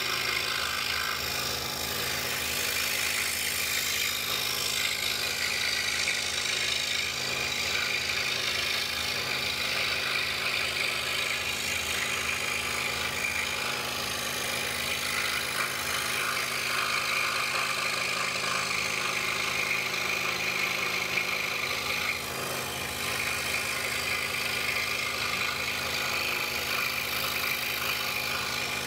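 DeWalt scroll saw running steadily, its reciprocating blade cutting through a wooden puzzle blank.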